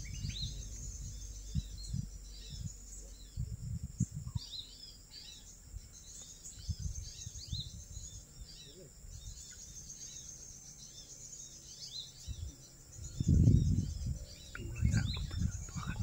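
Small birds chirping in many short, quick calls over a steady high drone. A louder low rumble comes about thirteen seconds in and again near the end.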